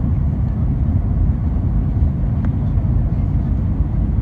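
Steady low rumble of engine and airflow noise inside an Airbus A320 cabin, heard from a window seat on descent with the flaps extended.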